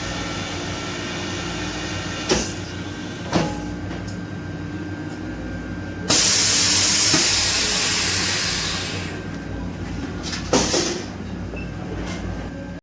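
Single-chamber vacuum packing machine (CV-500W) with its vacuum pump running steadily and a couple of knocks. About six seconds in, a loud rush of hissing air begins as the chamber is vented back to atmosphere, then fades over about three seconds. Two more knocks come near the end.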